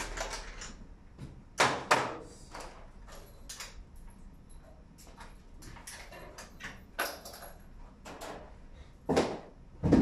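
Scattered clicks, knocks and light rattles of hands working on the backs of LED video-wall cabinets and their cable connectors. Two louder knocks stand out, one about two seconds in and one near the end.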